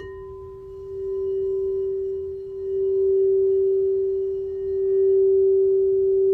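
Crystal singing bowl ringing a single steady tone, struck again at the start so that its higher overtones sound briefly and fade. The tone swells and eases in slow waves, growing louder over the span.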